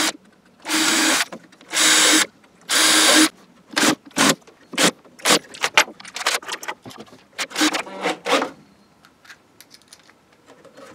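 Cordless drill boring pilot holes into pine boards, in four short bursts in the first three seconds. These are followed by a run of quick clicks and a few brief whirs of the drill.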